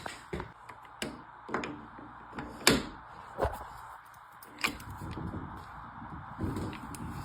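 Irregular sharp knocks and clunks, about eight of them spread over several seconds, over a faint steady background hum.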